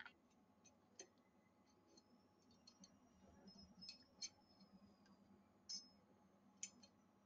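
Near silence with faint, scattered light clicks of small steel parts of a Colt 1911 pistol being handled and fitted during reassembly, about half a dozen over the stretch.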